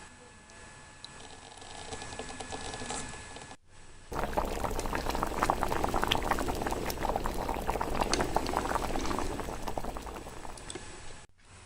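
Liquid bubbling at a rolling boil, a dense crackle of many small pops. It starts suddenly about four seconds in, after a few quiet seconds, and cuts off suddenly near the end.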